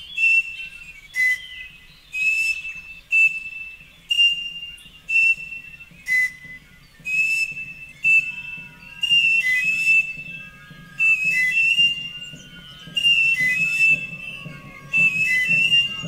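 Piloilo, a Mapuche panpipe, blown in short shrill whistling blasts about once a second. Most blasts are on one high note, with a lower note now and then, and each starts with a breathy rush of air.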